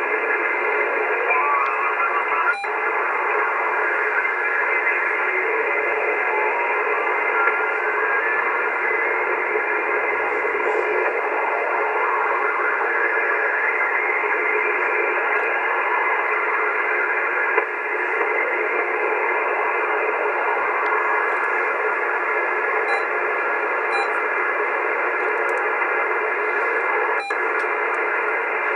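AOR AR-8600 communications receiver in lower sideband on the 80-metre band, playing steady band noise with faint whistles from carriers as the dial is tuned slowly upward. A whistle rises in pitch over the first several seconds, and the audio drops out for a moment twice.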